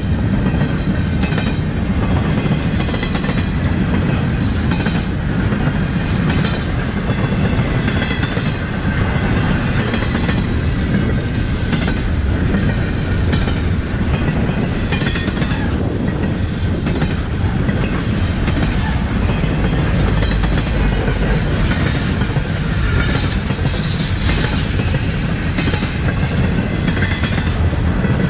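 Norfolk Southern intermodal freight train rolling past: a steady, continuous rumble of cars and wheels on the rails with a faint high ringing over it.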